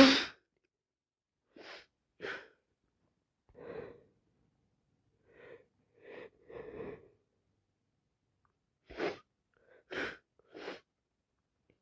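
The end of a loud sneeze right at the start, then a string of short, quieter sniffs and breaths through a runny nose, about nine in all in small clusters. The sniffing is from a streaming nose that she puts down to either a cold or hay fever.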